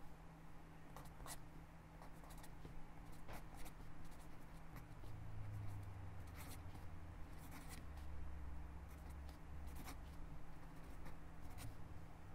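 Fine-tip pen writing cursive on lined notebook paper: quiet scratching of the nib across the page, with scattered light ticks as the tip lifts and touches down. A faint steady low hum sits underneath.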